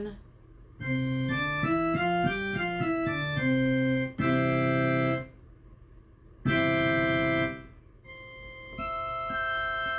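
AODSK S-200 digital piano playing its church organ voice: a run of notes, then two held chords and a softer sustained chord near the end.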